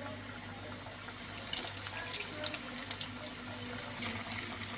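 Breaded chicken-and-potato rolls sizzling as they deep-fry in hot oil, a steady hiss with many small crackling pops.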